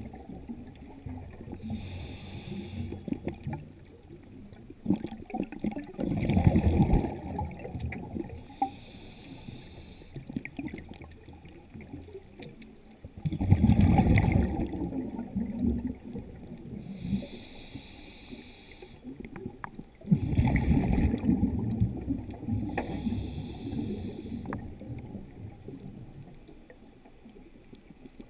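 A scuba diver breathing through a regulator underwater, in a slow steady rhythm: a short hiss on each inhale, then a louder low bubbling on each exhale, about every seven seconds.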